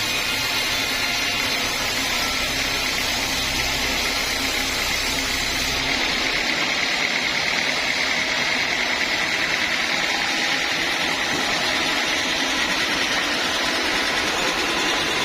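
Sawmill saw machinery running steadily with a loud, even mechanical noise. About six seconds in, the deep rumble drops away and the sound turns thinner.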